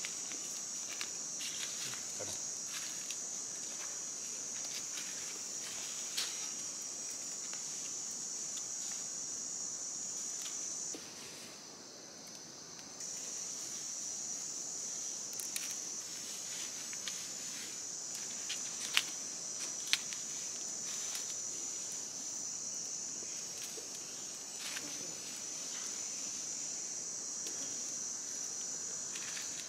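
Steady high-pitched chorus of forest insects, briefly thinning about eleven seconds in, with scattered crackles and snaps of twigs and leaves being handled and stepped on.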